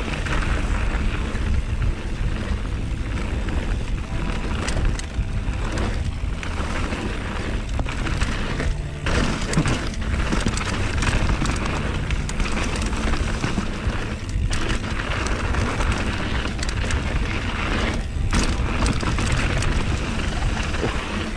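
Mountain bike descending a dirt trail at speed: steady heavy wind noise on a chin-mounted GoPro's microphone over tyres rolling on dirt, with occasional brief knocks and rattles from the bike over bumps.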